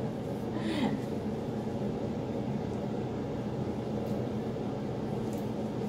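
Steady low hum of running equipment with a faint hiss, and a brief soft noise about a second in.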